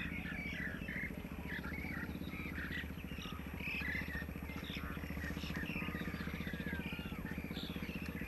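Diesel engine of a JCB 3CX backhoe loader running steadily at an even idle, with birds chirping over it.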